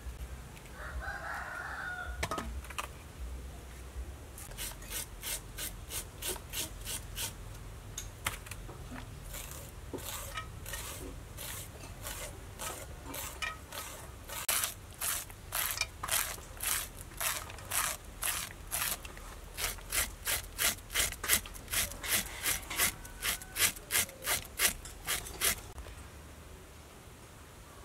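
A knife scraping kernels off a fresh corn cob in short, even strokes, about three a second, louder in the second half and stopping a couple of seconds before the end. A rooster crows once near the start.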